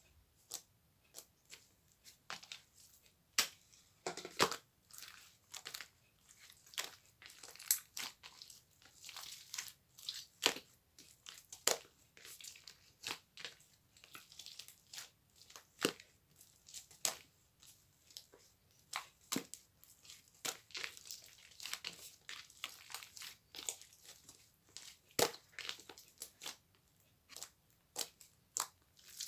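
Close-up crackling and crunching: irregular sharp crackles, a few a second, with short pauses between bursts.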